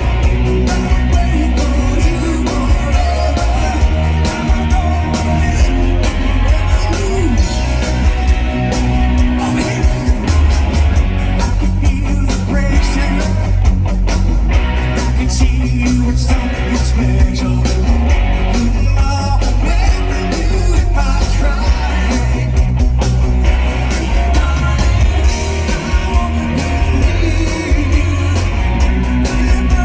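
Live rock band playing loud through a concert PA, with a singer's vocals over heavy bass and drums, recorded from the crowd.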